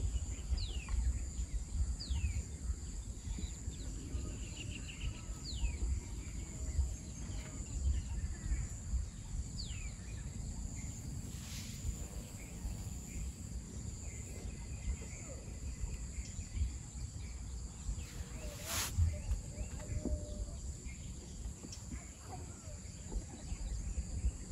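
Rural outdoor ambience: a steady high-pitched insect drone, with a bird giving short falling whistles several times in the first half, over a constant low rumble. A single sharp click comes near the end.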